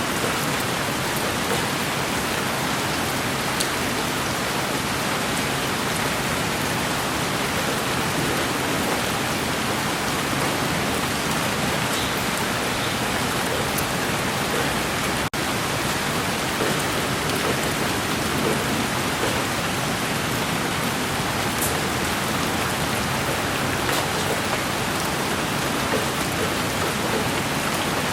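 Steady rain falling, an even hiss with a few sharper drop ticks, broken by a momentary dip in level about halfway through.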